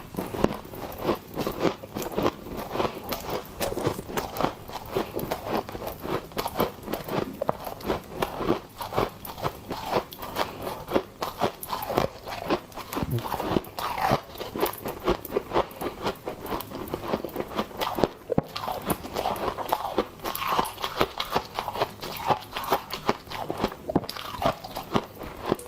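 Frost and popping candy being bitten and chewed close to the microphone: a dense, continuous run of sharp crunches.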